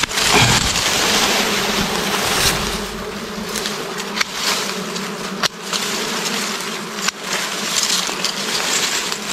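A swarm of bees buzzing in a steady hum around their nest as the comb is pulled from its branch, with rustling of grass and leaves.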